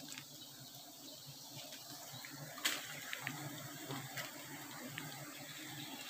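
Faint steady hum of a mass of wild honeybees swarming on an open comb, under a soft hiss, with a few small clicks and taps, the sharpest about two and a half seconds in.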